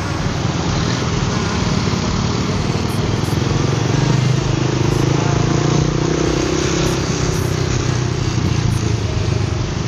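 Motorcycle engine running steadily at low speed in slow traffic, with a steady rush of wind and road noise.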